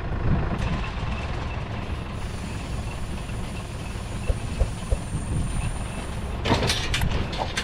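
Vehicle engine running with a steady low rumble, the vehicle carrying the bales being loaded. A few light clicks come midway, then a burst of loud knocking and clattering near the end.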